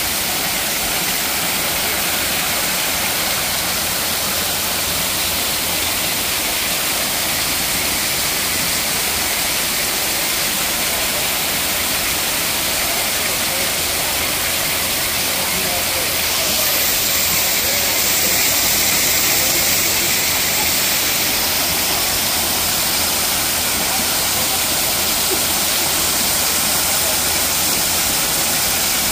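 Waterfall cascading over rock into a shallow pool: a steady, loud rush of falling and splashing water, turning a little brighter and hissier about halfway through.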